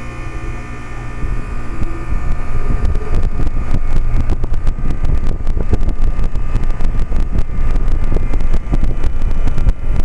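Outdoor unit of a Trane XL20i heat pump starting up in cool mode: the condenser fan spins up from about a second in to a steady rush of air by about three seconds, its airflow buffeting the microphone, over a low hum.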